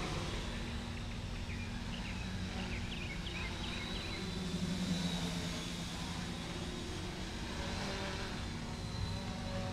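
Quadcopter's 900 kV brushless motors and propellers humming steadily while it hovers in GPS hold: a thin high whine held over a low drone that swells briefly about five seconds in.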